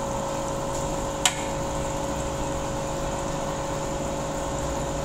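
Aquarium air pump humming steadily and bubbling through the tank water, with one sharp click about a second in.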